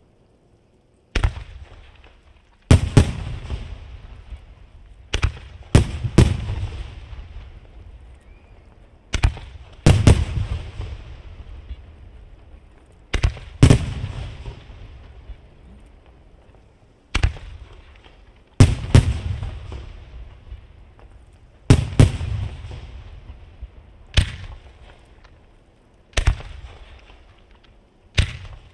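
Aerial firework shells bursting overhead: sharp bangs every one to four seconds, often two in quick succession, each followed by a long rolling echo that fades away.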